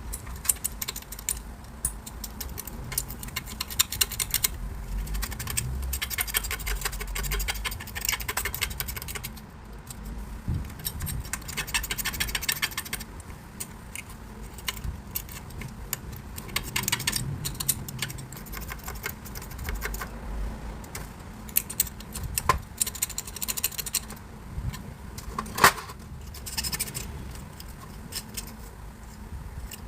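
Metal hand tools clinking and scraping in bursts, with several runs of rapid clicking lasting a couple of seconds each.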